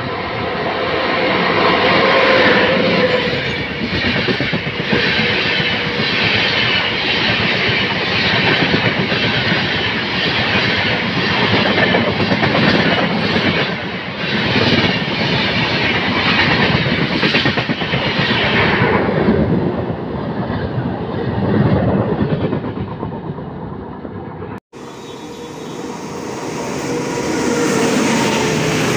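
An express train hauled by a WAP7 electric locomotive passes at speed, its LHB coaches' wheels clattering rhythmically over the rail joints. The clatter fades about 19 seconds in. It breaks off abruptly about 25 seconds in, and a second electric-hauled train starts rushing past.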